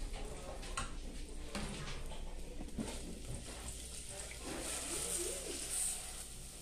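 Chopped garlic sizzling in hot oil in an enamel pot, with a silicone spatula knocking and scraping against the pot; near the end dry rice is poured in and the hiss grows stronger. A brief wavering pitched call sounds in the background about two thirds through.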